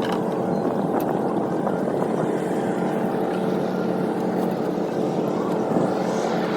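Small boat's engine running steadily, an even drone with no change in speed.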